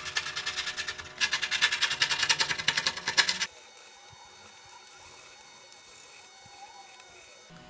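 Fast, rapid scraping strokes of a knife blade on a wooden reed organ strip, about ten a second, stripping off old cloth. After about three and a half seconds the strokes stop and only a quieter, gentler rubbing remains.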